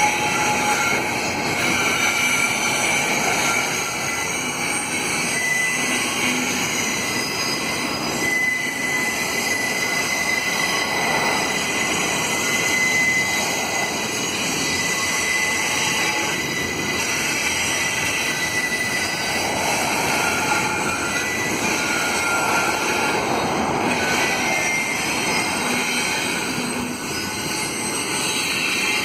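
Wheels of a Canadian Pacific double-stack container train squealing against the rails as the long train strains around a curve. Several high squeal tones come and go over the steady rumble of the passing cars.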